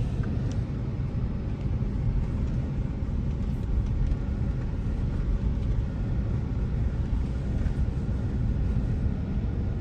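Car interior road noise while driving: a steady low rumble of engine and tyres.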